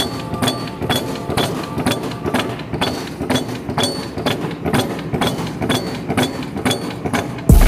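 20-ton OBI press running, its ram striking in a steady rhythm of about three strokes a second. A much louder, deeper sound cuts in just before the end.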